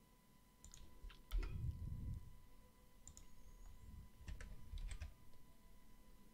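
Faint computer keyboard keystrokes and mouse clicks in scattered small clusters as Blender shortcuts are entered; the heaviest presses, about a second and a half in, carry a dull thud.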